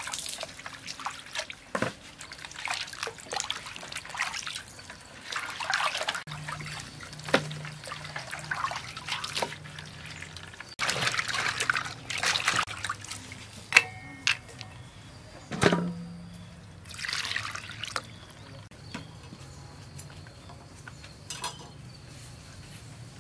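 Water splashing and sloshing in a metal pot and basin in repeated bursts as food is put in and scrubbed by hand, with a few sharp clicks partway through.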